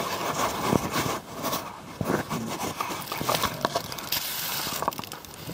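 Rustling and scraping with many small irregular clicks, as dusty things are handled and moved.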